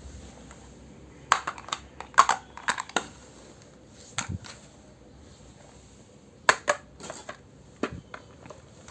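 Miniature toy kitchen pieces clicking and clattering as they are handled and set down, in several quick clusters of sharp taps.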